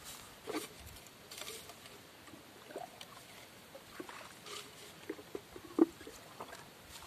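Scattered rustling and small crackles of grass and leaves being handled by hand as plants are picked, with one sharper, louder click near six seconds in.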